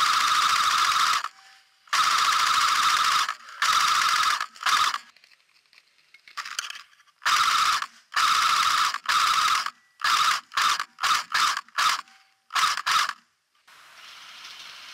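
Airsoft electric gun firing on full auto: several bursts of about a second each, then a quick string of short bursts. A steady hiss takes over near the end.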